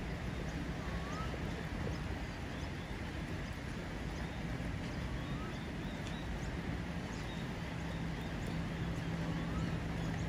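Low steady hum of a passenger train approaching slowly, growing louder near the end, over a steady outdoor background noise. A bird gives a short rising whistle three times, about four seconds apart, with faint high chirps in between.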